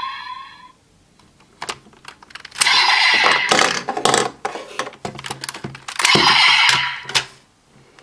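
Plastic clicks and rattling from a DX Kamen Rider toy belt being handled: the small raise buckle and then the Powered Builder buckle are unclipped from the Desire Driver in a run of quick clicks and scrapes lasting several seconds. At the very start, the tail of the toy's electronic sound effect fades out.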